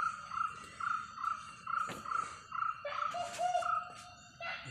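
An animal calling: a short high note repeated a little more than twice a second, then a lower-pitched repeated call taking over about three seconds in.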